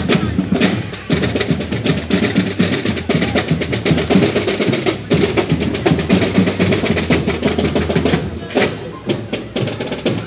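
Marching drum and bugle corps drumline playing a rapid parade cadence on snare drums and bass drum.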